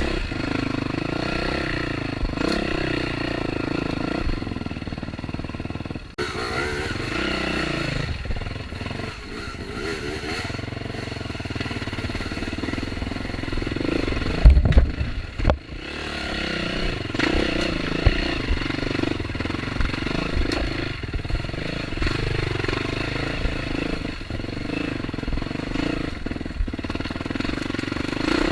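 Off-road motorcycle engine running under varying throttle on a trail, its pitch rising and falling, with clattering of the bike over rough ground. A sharp loud knock about halfway through, and another a second later.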